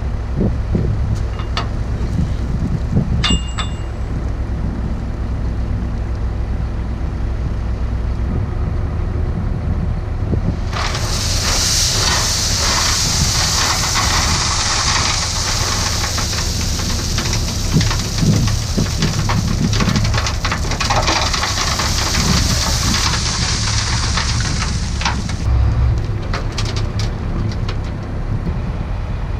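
Diesel engine of heavy equipment running steadily. About eleven seconds in, a loud high hiss starts abruptly, holds for about fifteen seconds and then cuts off.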